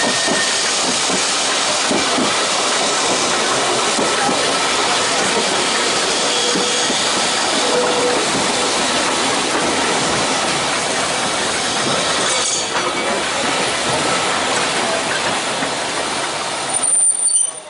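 Manx Electric Railway open electric trams running side by side on narrow-gauge track: a steady rumble and clatter of steel wheels on the rails. The noise drops away suddenly near the end.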